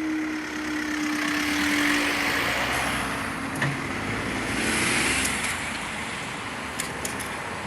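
Road traffic passing over the level crossing: two vehicles go by, the rush of their tyres swelling about two seconds in and again about five seconds in, while a steady hum fades away at the start.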